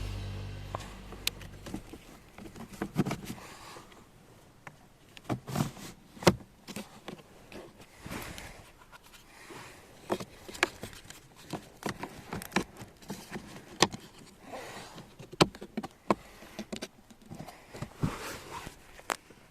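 Irregular light clicks and taps with some rustling, as of hands handling small parts.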